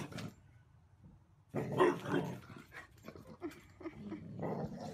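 A dog vocalizing in rough bouts, loudest about two seconds in, with another bout near the end.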